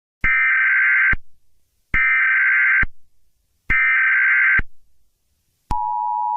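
Emergency Alert System SAME header: three identical bursts of warbling digital data tones, each just under a second long. Near the end the steady two-tone EAS attention signal begins.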